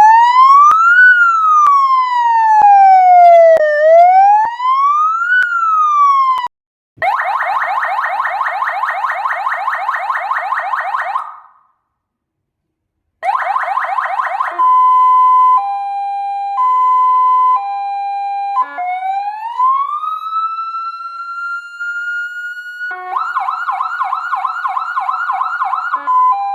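XYAL2127 electronic siren speaker cycling through its warning tones. It plays a slow wail rising and falling twice, then a fast yelp, which stops for about a second and a half before starting again. It then alternates between two pitches (hi-lo), plays a single tone that rises and holds, returns to the fast yelp and ends on the hi-lo again.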